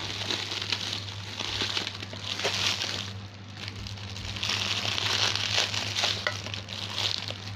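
Thick bubble wrap crinkling and rustling as it is handled and pulled off a parcel, in several uneven swells with small crackles.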